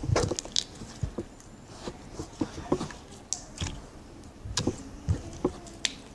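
Slime being squeezed, stretched and poked by hand, giving irregular wet clicks and pops.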